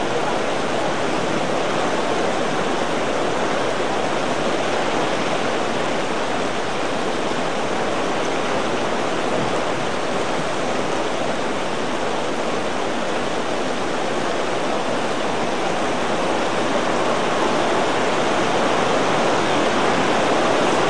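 Heavy rain pouring down steadily, an even rushing hiss with no let-up.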